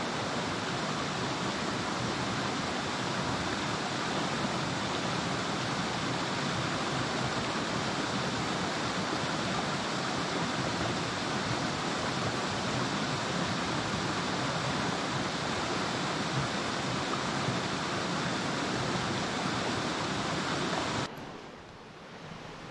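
Shallow rocky forest stream rushing steadily over stones, a dense even hiss of flowing water. About 21 seconds in it drops suddenly to a quieter, softer rush.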